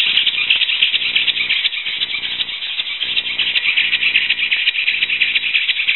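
WowWee Flytech Dragonfly's electric motor running and driving its flapping wings: a steady, rapid mechanical clatter that starts suddenly.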